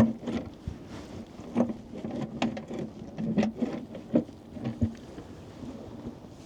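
Irregular metallic knocks, clunks and scraping as engine parts are worked loose by hand, most likely the valve cover of a Detroit Series 60 diesel being freed after its bolts were removed.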